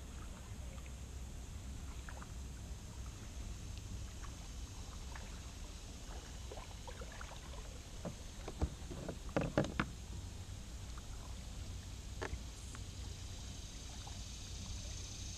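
Kayak being paddled: steady low rumble with scattered light clicks from the paddle and hull, and a short cluster of louder knocks about nine seconds in.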